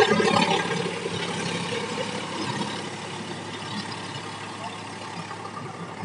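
Sonalika tractor's diesel engine running steadily while it pulls a rotavator through wet paddy-field mud, a low drone that fades gradually over the first few seconds.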